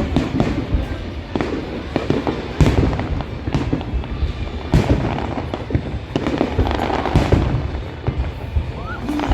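Aerial fireworks display going off: a rapid, irregular string of sharp bangs and booms over a continuous low rumble.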